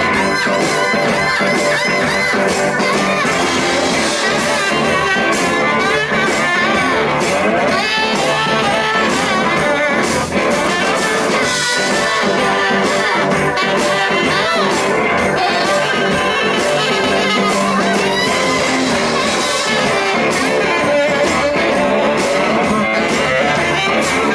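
A blues-rock band playing live, with guitar to the fore.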